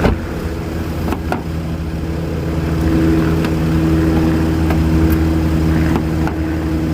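Kia Rio engine idling steadily, just started with a newly cut key. A couple of short clicks sound about a second in.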